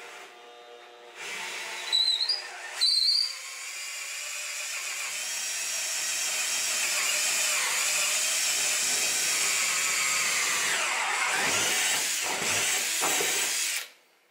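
Cordless drill boring a 3/16-inch pilot hole through drywall into a metal stud, pressed hard. There are two short high squeals from the bit about two and three seconds in, then a long steady run whose pitch dips and recovers a few times near the end before it stops suddenly.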